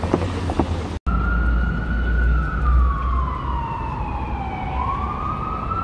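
Emergency vehicle siren in a slow wail, starting about a second in: one long tone that falls steadily for about four seconds, then climbs back up, over the low rumble of city traffic.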